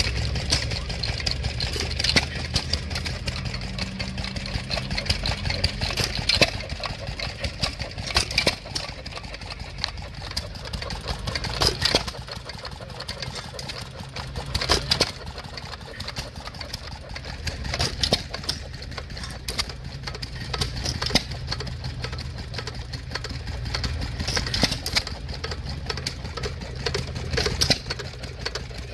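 Antique hit-and-miss stationary gas engines running: a sharp firing crack every two to four seconds, the engine coasting on its flywheels between firings, over a steady low engine drone.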